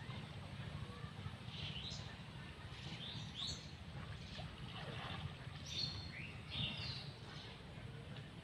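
Birds calling in short chirps and quick upward and downward glides, in a few clusters, over a steady low rumble.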